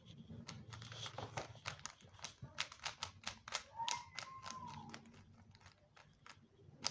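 A Rubik's cube being turned fast during a solve: a quick run of plastic clicks and clacks, densest over the first five seconds, then thinning out.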